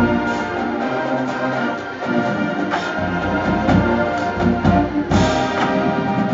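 College marching band of brass and drums playing a pop medley: loud sustained brass chords punctuated by drum hits, with a big ensemble accent about five seconds in.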